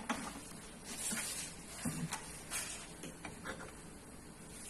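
Quiet kitchen background with a few faint, scattered light clicks and taps.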